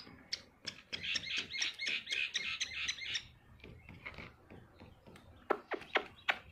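Young chicks peeping in a quick run of high chirps for about three seconds. A few sharp finger snaps come near the end, calling the chicks over.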